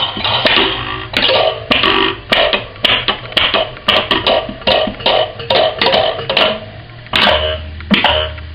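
Kitchen objects played as improvised instruments: a quick run of sharp struck or plucked notes, about three a second, each with a short pitched ring, with a brief pause near the end.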